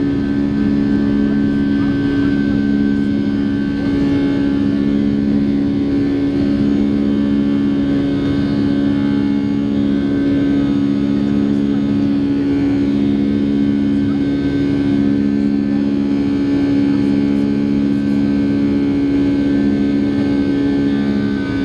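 Cabin drone of a Boeing 757-200's Rolls-Royce RB211 turbofans at climb thrust just after takeoff, heard beside the engine. It is a steady hum with a slow, regular throb about every two seconds.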